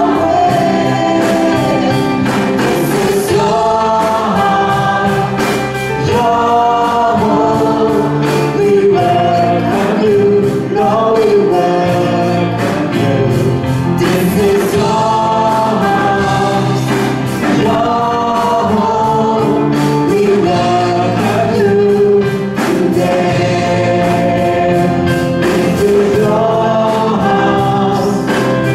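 A mixed group of men and women singing a Christian worship song together into microphones, with a live band of electric guitar, drums and keyboard behind them.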